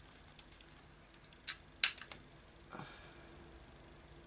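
Small stapler clicking as a tag is stapled into a paper journal: a few sharp clicks, the two loudest about a third of a second apart near the middle, with a light paper rustle after them.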